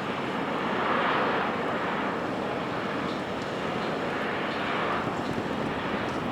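Steady rushing drone of a 2,718-ton car ferry's engines and propeller wash as the ship manoeuvres out of port, swelling slightly about a second in and again near the end.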